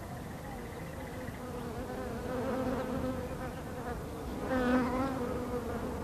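African honeybees buzzing in a steady hum around a hanging log hive, swelling louder for a moment about four and a half seconds in.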